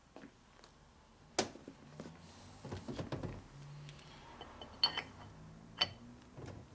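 Metal tools and engine parts being handled on a workbench. A sharp click comes about a second and a half in, then some light rattling, then two ringing metal clinks near the end.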